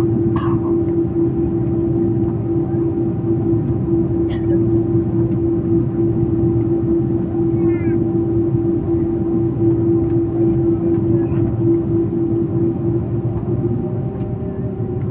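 Airbus A330-200 cabin noise while taxiing, heard from a seat behind the wing: a steady rush of engine and air noise with a constant hum tone running through it, and a few faint clicks.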